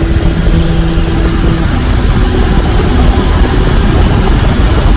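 Boeing Stearman biplane's radial engine and propeller running steadily in cruise, heard from the open cockpit with loud wind rush over the microphone.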